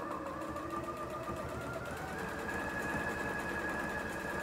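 Electric sewing machine running at a steady stitching speed, a rapid even needle rhythm with a motor whine. About two seconds in, the whine steps up in pitch as the machine speeds up.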